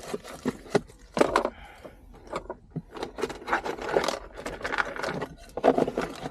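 Hand tools and interior trim being worked while console fasteners are removed: a string of irregular clicks and knocks with scraping and rustling between them.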